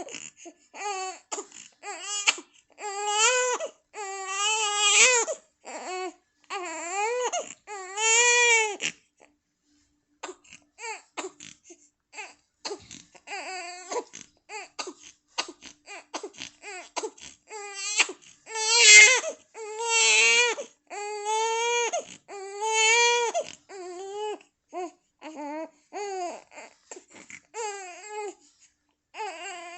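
A young child crying in wavering wails, with a short pause about nine seconds in, a run of quick short sobs after it, and the loudest wails about two-thirds of the way through.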